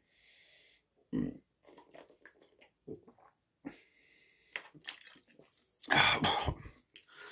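Gulping and swallowing as a plastic bottle of flavoured water is chugged upside down, with one louder gulp about a second in. About six seconds in, as the bottle comes down, the drinker lets out a loud, breathy sound lasting about a second.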